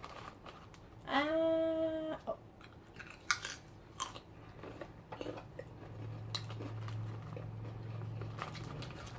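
Someone chewing crunchy snack chips with their mouth close to the microphone, making scattered crisp crunches. About a second in there is a short hummed "mmm".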